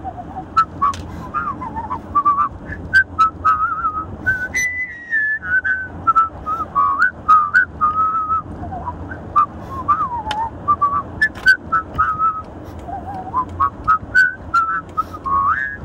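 A man whistling a melody through pursed lips, one clear note at a time, over the steady low rumble of a car driving. Short clicks scattered throughout may be the accompaniment playing from a smartphone.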